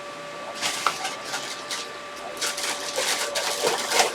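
Handling noise: irregular rustles, scrapes and clicks, over a faint steady high-pitched hum.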